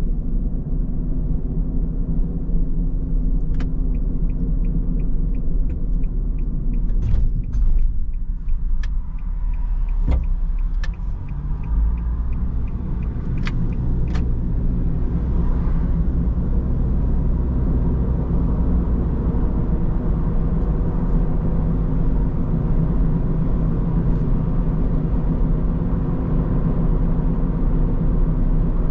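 Car driving, with a steady low rumble of engine and road. For several seconds in the first third there is a light, regular ticking, about three a second, from the turn-signal indicator, along with a few sharp clicks. About halfway in, the engine note rises as the car picks up speed.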